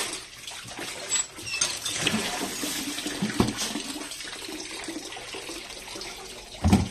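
Tap water pouring into a metal basin and splashing as hands rinse raw shrimp in it. A knock against the basin comes about halfway, and a louder thump just before the end.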